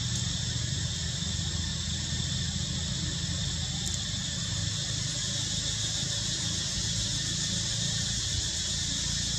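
Steady high drone of insects in the trees, holding level throughout, over a low steady rumble.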